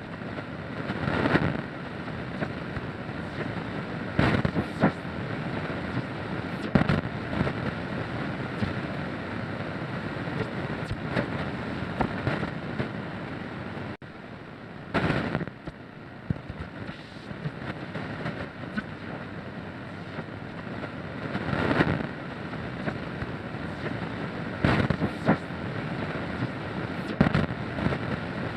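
Radio static: a steady hiss broken every few seconds by short, loud crackling bursts.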